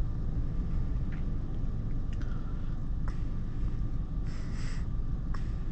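Steady low rumble inside a car's cabin as it sits stopped in traffic with the engine idling. A few faint clicks and a brief hiss about four seconds in.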